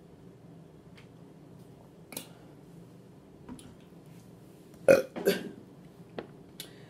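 A woman belching: two loud burps close together about five seconds in, with a few smaller sounds before and after them.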